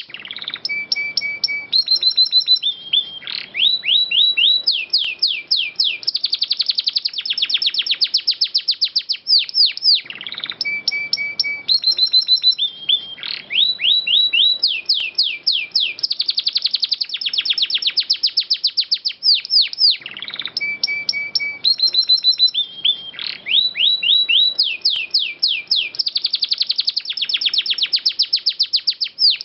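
Canary singing with long rapid rolls and trills, fast repeated notes and short whistled tones. The same song phrase of about ten seconds plays three times over, looped as a training recording.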